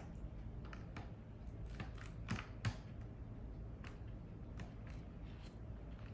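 Plastic fork tapping and scraping against a clear plastic salad container: a handful of irregular clicks, the two loudest about two and a half seconds in.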